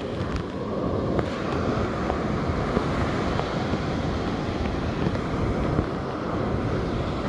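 Wind noise on the microphone over steady breaking surf.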